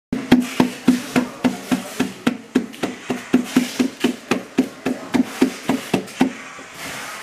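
Rapid, regular knocks, about four a second, each with a short ringing tone, stopping a little over six seconds in. They come from a ceramic llama table lamp being rocked on a tilted test board, its base knocking against the board.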